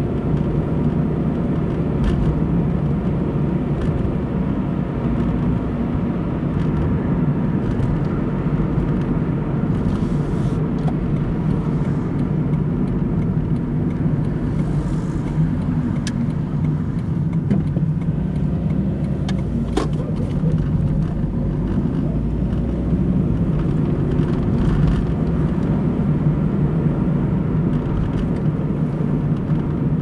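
A car driving at steady speed: continuous engine and tyre road noise, with a couple of brief ticks in the middle.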